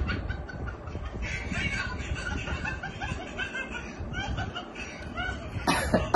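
Laughing and snickering voices, then a sharp loud smack near the end: a wooden board slapped against a man's cheek.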